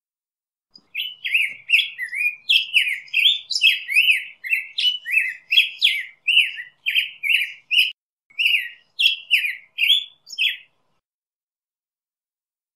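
Black-headed grosbeak singing: a continuous warbled song of quick, sliding notes, about two a second, lasting about ten seconds.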